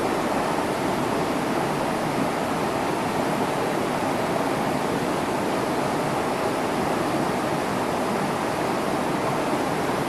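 Shallow mountain stream flowing over rocks and pebbles close by, a steady, even sound of running water.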